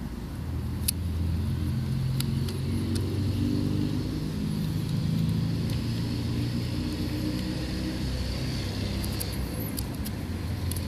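A motor vehicle's engine running with a low, steady hum, over which come a few sharp metal clicks from the Schneider Super Angulon lens's leaf shutter and its levers being worked by hand: one about a second in, another just after two seconds, and several close together near the end.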